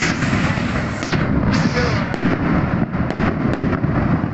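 Fireworks going off in a dense, continuous barrage of bangs and crackles, with sharper single cracks standing out now and then.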